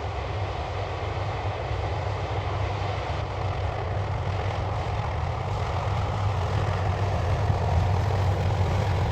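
John Deere 9670 STS combine harvester running steadily while harvesting corn: a continuous deep engine drone with machine noise over it, growing gradually louder.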